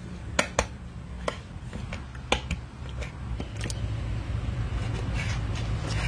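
Kitchen knife clicking against a wooden cutting board as an eel is cut, a handful of sharp taps in the first four seconds. Underneath, a steady low rumble grows louder about four seconds in.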